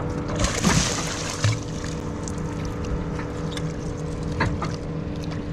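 Boat's outboard motor running with a steady hum, with a brief rush of noise about half a second in.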